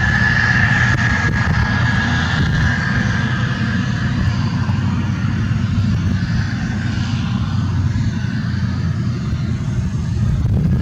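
Case IH 2388 combine running steadily under harvest load, with a deep engine drone and a high whine that fades away over the first few seconds.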